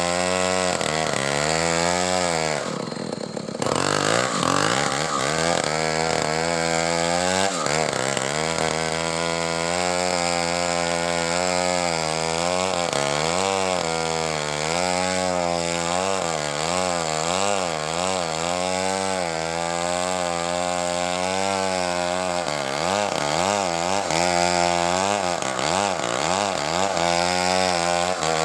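Stihl chainsaw running under load as it cuts through a coconut palm trunk, its engine pitch wavering up and down. The engine drops off briefly about three seconds in, then comes back up to cutting speed.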